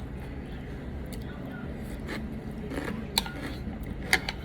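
Utensils clicking against a bowl during a meal: a few sharp clicks over steady room hum, the loudest about three and four seconds in.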